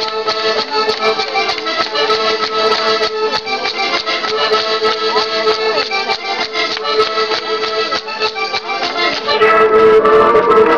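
Circassian folk dance music led by an accordion, with a fast beat of sharp clicks running through it. It gets louder about nine and a half seconds in.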